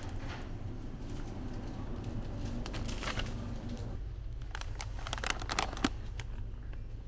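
Plastic snack bags crinkling as they are handled and picked up off the shelf, in short rustling clusters about three seconds in and again from about four and a half to six seconds in, over a steady low hum.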